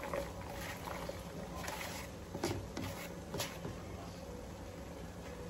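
Shredded cabbage tipped and brushed out of a plastic colander onto noodles in a pan: soft rustling with a few light knocks, the strongest about two and a half and three and a half seconds in, over a steady low hum.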